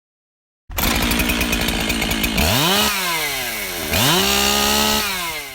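Two-stroke chainsaw running at idle with rapid firing, then revved twice: the pitch climbs and slowly sinks back, then climbs again and holds high for about a second before the sound cuts off abruptly.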